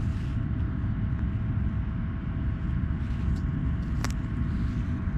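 Steady low background rumble with a faint steady hum over it, and a single sharp click about four seconds in.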